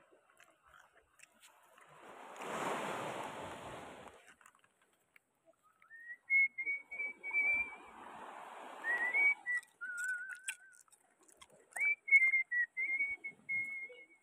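A person whistling a slow tune, mostly holding wavering notes at one pitch, with a lower stretch in the middle. Earlier, about two seconds in, a broad rush of noise swells and fades.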